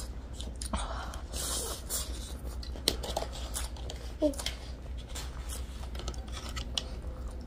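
Close-up eating sounds: noodles being slurped and food chewed, with scattered small clicks and a couple of brief murmurs.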